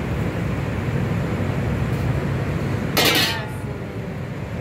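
Steady low rumble of commercial kitchen ventilation and range, with one brief, loud burst of noise about three seconds in.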